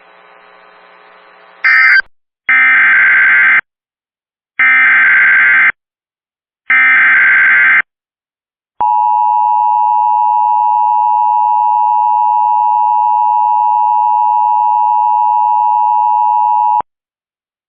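Emergency Alert System header: three identical bursts of warbling digital data, each about a second long, sent one after another. The steady two-pitch attention signal then sounds for about eight seconds and cuts off, marking the start of a new alert.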